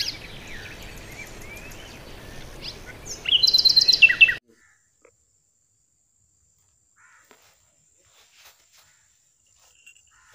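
Several birds chirping and whistling, with a loud fast run of repeated chirps that cuts off abruptly a little over four seconds in. Near silence follows, with only a few faint ticks.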